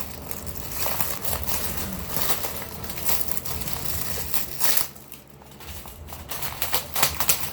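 Plastic packaging crinkling and crackling as a new storage bag is handled and folded, the rustling dying down briefly about five seconds in.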